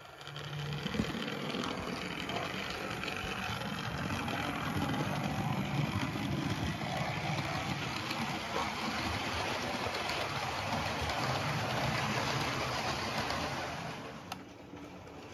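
Model railway locomotive (BR Standard Class 4 No. 75006) running along its track pulling coaches: a steady electric motor whir with wheels rattling over the rail joints. It fades away about fourteen seconds in.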